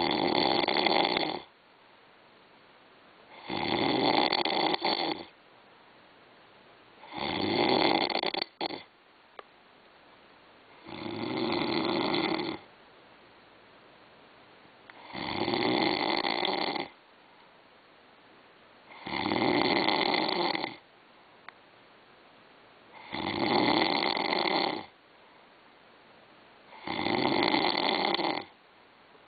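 A person snoring heavily in a regular rhythm: eight loud snores, one about every four seconds, each lasting a second and a half to two seconds and stopping sharply, with quiet breaths between. The snoring is presented as that of someone with sleep apnoea.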